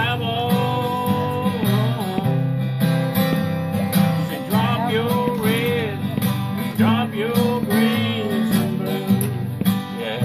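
Two acoustic guitars played together, strummed chords under a picked melody line.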